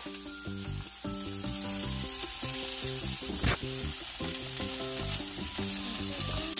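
Onions and carrot sticks frying in hot oil in a stainless steel skillet, a steady sizzle, with a brief knock about halfway through.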